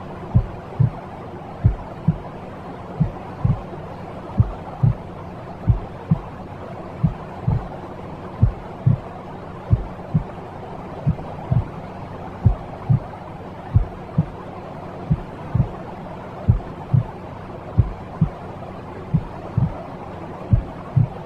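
Steady soft white-noise hiss with a low, slow heartbeat under it: a double thump, lub-dub, about once every 1.4 seconds. It is a soothing sound track of the kind played to calm a baby to sleep.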